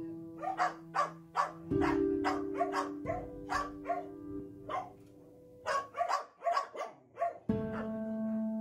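Dogs barking repeatedly, two or three barks a second, with a short pause a little past the middle. Background music with long held notes plays underneath.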